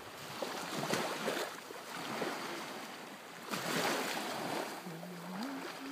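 Ocean surf washing on a sandy beach, swelling in slow surges. Near the end a steady low hum starts and steps up in pitch.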